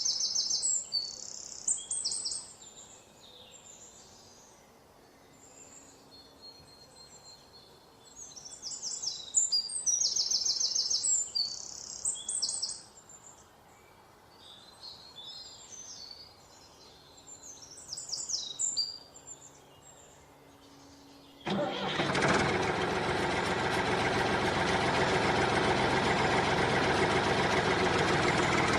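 Small birds chirping on and off, then a motor switching on abruptly about three-quarters of the way through and running steadily and much louder, the drive of a homemade mini tractor.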